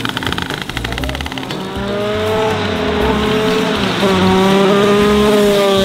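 Two-stroke shifter kart engine running hard after a push start, with rapid firing pulses for the first second and a half, then a steady high-pitched whine as it holds high revs at speed.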